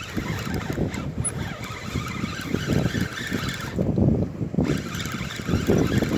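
Spinning fishing reel being cranked in a fight with a hooked chinook salmon, under a low, uneven rumble of handling and wind noise on the microphone.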